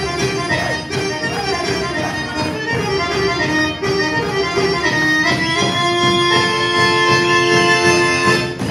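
Traditional southern Serbian folk dance music, accordion-led, played for a Bosilegrad dance: a quick, rhythmic melody for the first half, then about five seconds in the music settles into long held notes.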